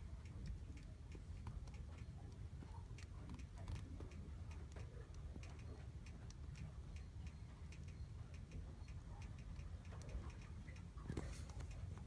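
Wood fire in a fireplace crackling: irregular sharp ticks and pops over a steady low rumble, with a quick run of louder crackles near the end.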